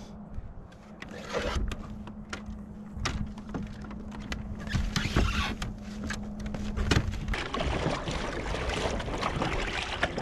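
Clicks and knocks of gear being handled aboard a plastic fishing kayak, over water splashing and lapping against the hull. A steady low hum runs underneath and stops about seven seconds in.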